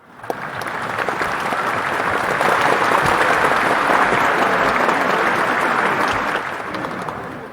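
Large audience applauding, dense crowded clapping that starts suddenly out of silence, swells to its fullest in the middle, and fades away near the end.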